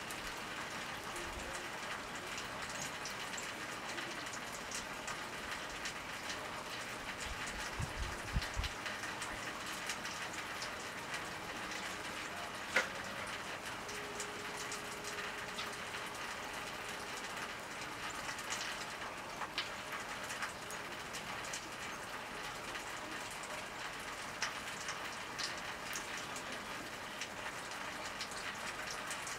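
Steady outdoor hiss like light rain, with scattered small clicks and ticks throughout, a sharper tick about 13 seconds in and a few low thumps around 8 seconds.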